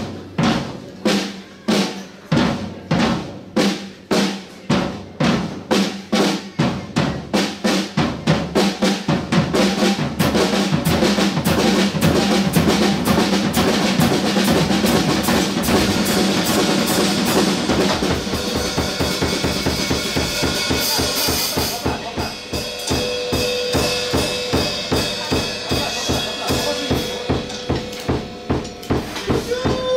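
Drum kit played in an even pulse of strokes, about two a second, that gradually speeds up into a dense drum pattern over the first ten seconds. A cymbal wash joins partway through, then the kit settles into an even beat, with a held tone sounding alongside near the end.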